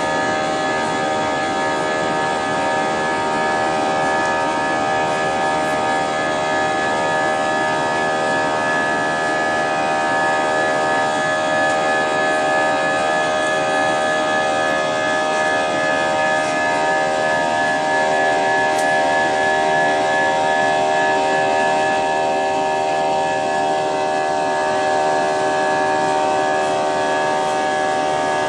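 Jet airliner's engines heard from inside the passenger cabin: a steady hum made of many held tones over a rushing noise, unchanging in pitch.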